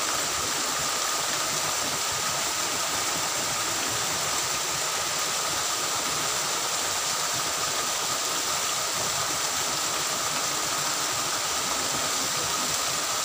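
Small cascade of water pouring into a ditch pool, a steady rushing splash.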